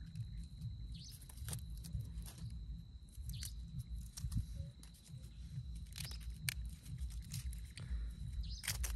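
Knife cutting an onion by hand, with scattered clicks and taps of the blade. Behind it are a steady high-pitched drone and a short chirp about every two and a half seconds.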